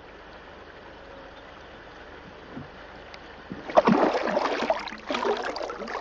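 Shallow creek running over stones, a steady rushing. A bit under four seconds in, a much louder rough, irregular noise comes in and lasts to the end.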